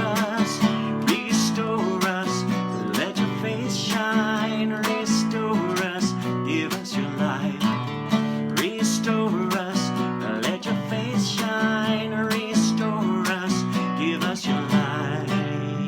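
Acoustic guitar strummed in a steady rhythm, accompanying a hymn refrain; near the end the strumming stops and a last chord is left to ring out.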